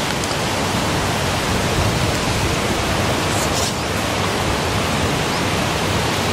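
Strong wind buffeting the microphone: a steady rushing noise with a deep, uneven rumble.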